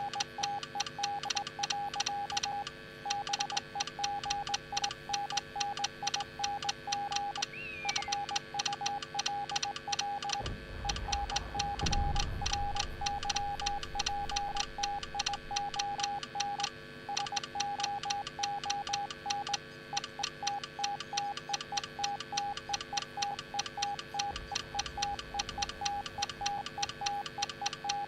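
Morse code sent as a single-pitched beep, keyed on and off in a fast, uneven run of short and long beeps with a click at each keying. A low rumble joins it for a couple of seconds about ten seconds in.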